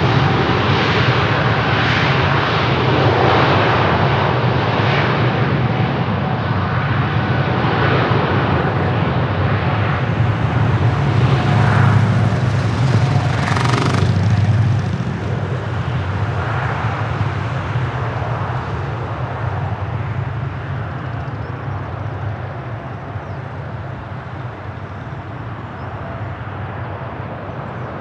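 Boeing 747-8's four GEnx jet engines at takeoff power: a loud, deep, steady rumble. About halfway through it starts to fade gradually as the aircraft climbs away.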